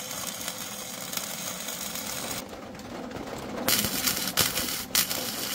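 Flux-core wire welder welding steel in bursts: a steady run for the first couple of seconds, a short pause, then two louder bursts that start and stop sharply near the end.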